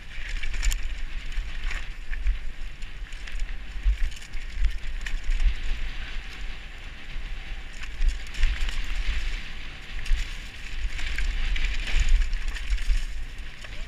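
Downhill mountain bike ridden fast over a rough dirt trail with roots and stones: the tyres rumble, the bike rattles and clacks over the bumps, and steady wind buffets the helmet-mounted microphone.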